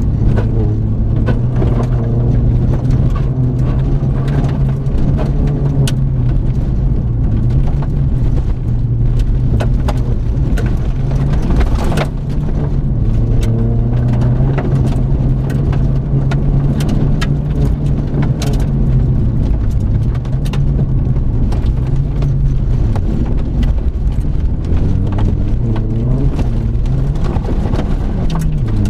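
Seat Ibiza Cupra engine pulling hard under full throttle on a gravel road, heard from inside the car. Its pitch climbs and drops back several times at gear changes, with sharp ticks of gravel striking the car.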